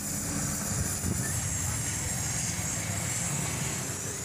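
Stick (arc) welding on a steel bicycle frame: a steady hiss from the arc over a continuous low hum.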